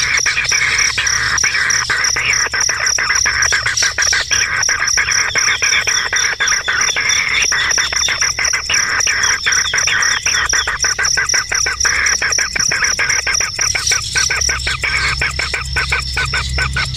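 Birds chirping in a rapid chattering series of short notes over a steady high-pitched whine, which drops away near the end.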